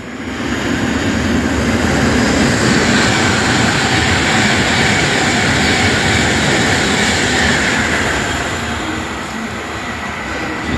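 Class 390 Pendolino electric train passing through non-stop at speed: a loud rush of wheel and air noise that builds over the first couple of seconds, holds, then eases off over the last few seconds as it goes by.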